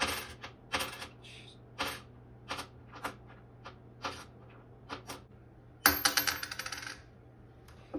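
A nickel dropped again and again onto a hard tabletop: a string of sharp single clicks, then, about six seconds in, the coin rattles and wobbles down for about a second before settling flat.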